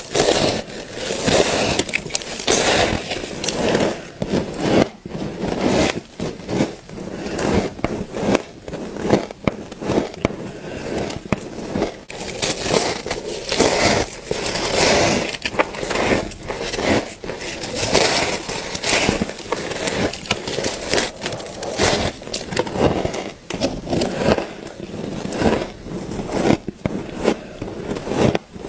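Frost being bitten and chewed: a dense, continuous run of crunches and crackles.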